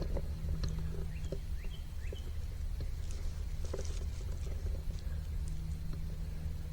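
Woodland ambience: small birds chirping faintly, short rising notes here and there, over a steady low rumble, with a few scattered light clicks.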